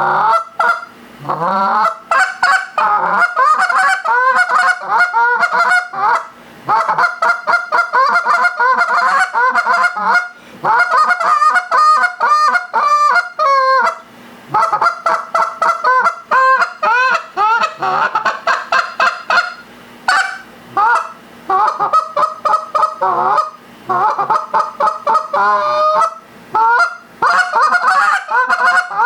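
Molt Gear Go2 straight-bore goose call, made of Delrin, blown by mouth in fast strings of honks and clucks whose pitch breaks sharply up and down. The runs last a few seconds each, with short pauses between them.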